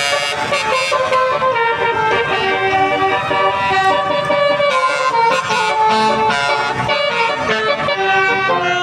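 Indonesian bus 'basuri' musical air horns playing a tune: several loud horn tones sounding together, the notes changing every fraction of a second without a break.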